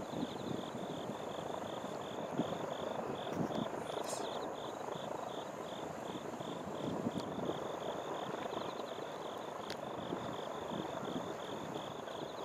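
An insect chirping in a steady, high-pitched pulse, about two to three chirps a second, over a steady outdoor background rumble.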